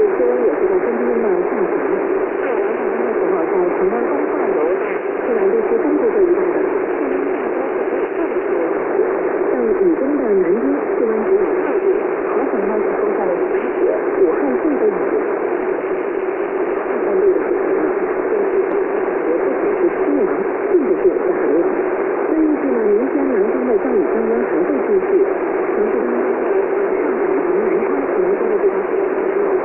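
Shortwave radio reception of a broadcast on 12500 kHz, heavy with steady static hiss in a narrow receiver passband. A steady tone runs through it, with faint wavering programme audio buried underneath.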